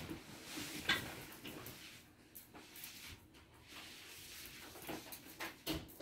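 Kittens scampering and pouncing on a tiled floor: irregular light taps, scuffles and claw clicks, the sharpest click about a second in and a few more near the end.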